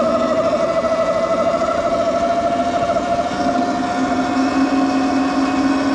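Electric bike motor whining steadily under way, its pitch sliding slowly down a little, over rushing wind and tyre noise.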